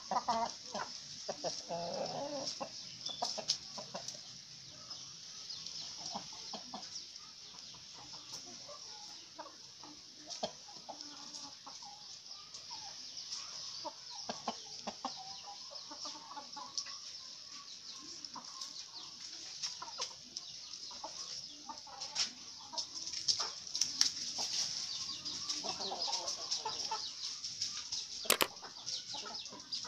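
A flock of free-range Indonesian village chickens (ayam kampung) clucking on and off, louder in the first few seconds and again near the end, over a steady high hiss.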